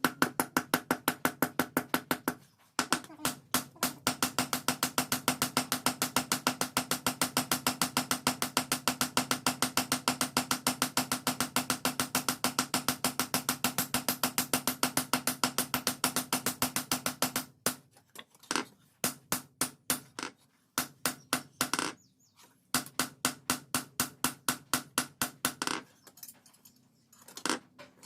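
Rapid, evenly spaced hammer blows on steel, several a second, forging a car leaf spring into a cleaver blade, with a steady metallic ring carrying between strikes. The long run of blows stops about two-thirds of the way through and gives way to shorter bursts with pauses.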